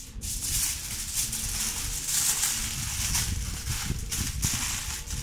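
Aluminum foil crinkling and crackling as hands fold and press it into a packet, with irregular crackles and soft knocks of the packet on the table.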